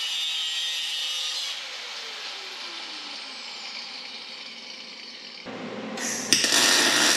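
Angle grinder cutting through steel bumper tubing with a steady high grinding, then the wheel spinning down with a falling pitch after about a second and a half. A louder, harsh burst of noise starts about six seconds in.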